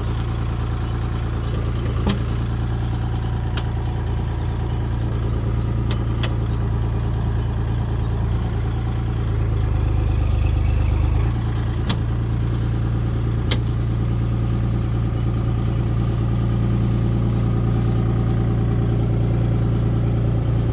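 Compact tractor engine running steadily as its front-end loader bucket dumps soil into a metal raised bed, with a few sharp ticks over the hum.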